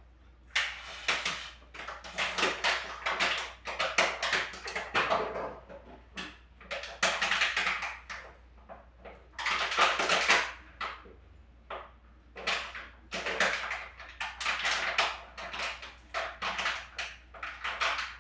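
Dishes and kitchen utensils clattering and scraping in irregular bursts, each about half a second to a second long.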